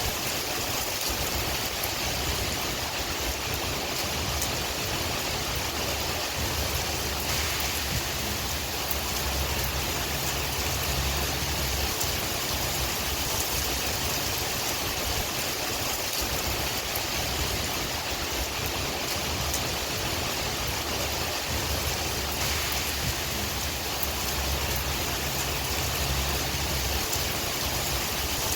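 Steady rain hiss with scattered drop ticks, over a low wind rumble that swells and eases.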